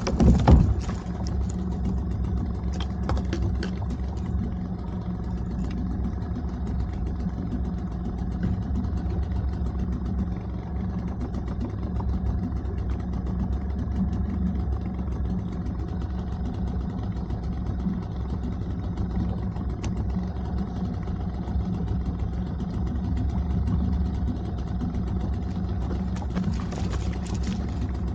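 Small boat's outboard motor running at a steady speed, a constant engine drone, with a few knocks in the first few seconds.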